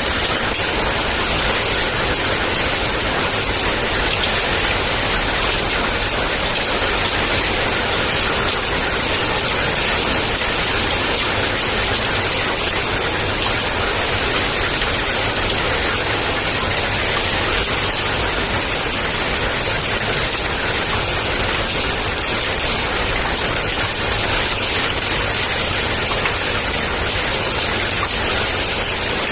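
Heavy rain falling in a steady downpour, an even hiss of many drops with no thunder.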